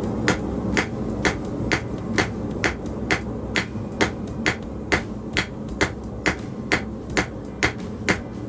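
Blacksmith's hand hammer striking a red-hot steel bar on an anvil at a steady pace of about two blows a second, each blow with a short metallic ring: drawing out a long taper. A steady low rumble runs underneath.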